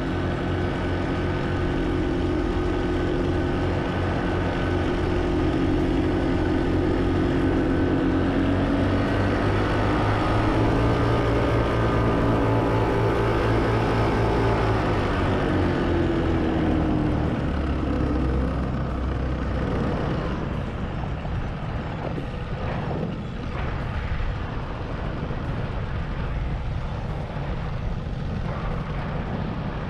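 Paramotor engine and propeller running steadily. About fifteen seconds in, the engine note falls in pitch and gets a little quieter, then runs on rougher.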